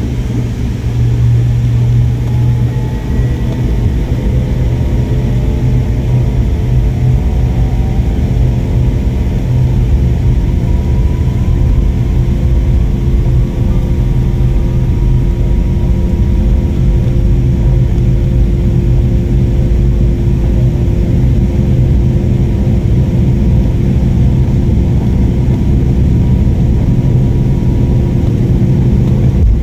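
Airliner's jet engines at takeoff power, heard from inside the cabin during the takeoff roll, over the rumble of the wheels on the runway. The engine whine rises in pitch over the first ten seconds or so, then holds steady.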